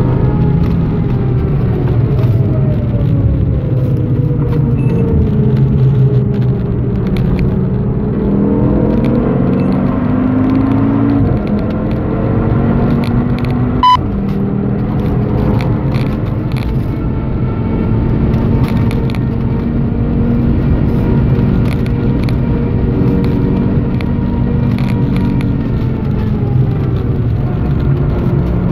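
Onboard sound of a 2013 Audi TT RS's tuned turbocharged five-cylinder engine at speed. The note falls as the car brakes, climbs hard under full throttle, drops at a gear change, then holds at high revs. There is a short beep about halfway through.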